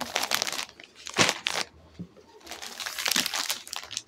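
Clear plastic packaging around packed suit sets crinkling as the packets are handled and lifted, in several rustling bursts.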